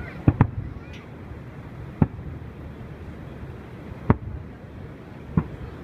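Aerial fireworks shells bursting. A quick pair of booms comes just after the start, then single booms about two seconds apart, over steady background noise.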